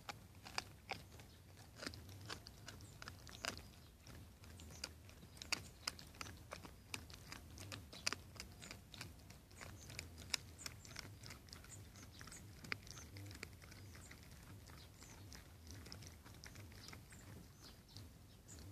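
A dog gnawing a bone: irregular sharp crunches and cracks of teeth on bone, coming thick and fast for the first half and thinning out toward the end.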